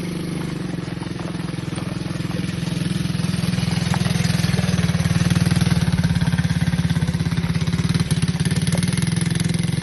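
ATV engine running steadily with a fast, even beat, getting louder a few seconds in.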